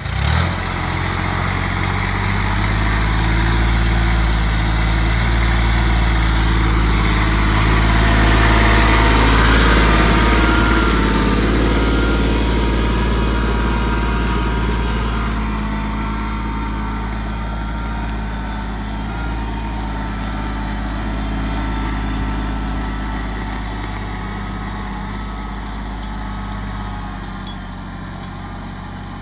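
Kubota GB 200 small tractor's engine running steadily under load while ploughing, growing louder about a third of the way in, then slowly fading as it draws away.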